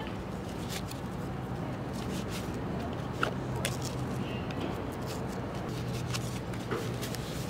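Wrist guards being handled and strapped on: soft rustles and scattered small clicks of fabric and straps, over a steady low hum.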